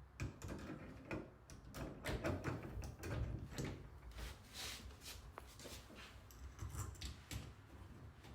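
Door lever hardware being handled: irregular light clicks and knocks of the lever's rose plate and trim parts being worked by hand.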